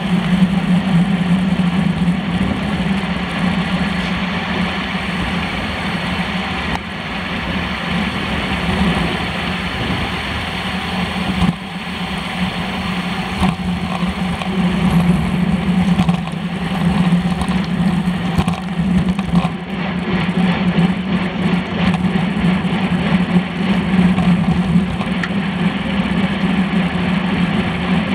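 Wind rush and road rumble picked up by an action camera on a road bike's handlebars while riding in a bunch: a loud, steady rush with a constant low drone.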